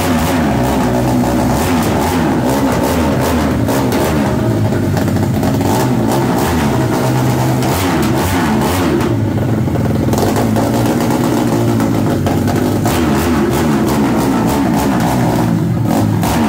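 Modified single-cylinder OHC motorcycle engine with a straight-through aftermarket exhaust, run loud and revved repeatedly up and down while the bike stands in place.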